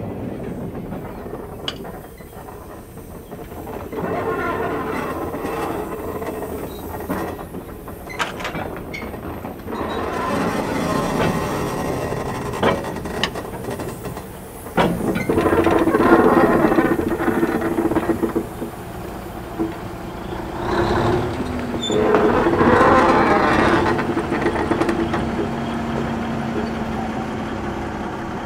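Empty flat wagons rolling slowly over a level crossing, their wheels clicking over the rail joints. About halfway through, a DSC class diesel shunting locomotive passes with its engine running steadily.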